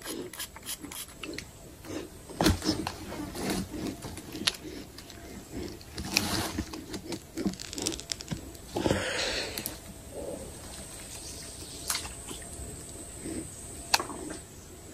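Quiet handling noise from a fishing rod and reel at the water's edge: scattered soft clicks and rustles, with a short rush of noise about nine seconds in.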